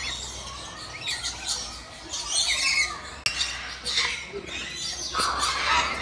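Many small aviary birds and small parrots chirping and squawking at once, short overlapping calls all through, growing denser about five seconds in; a single sharp click a little past three seconds.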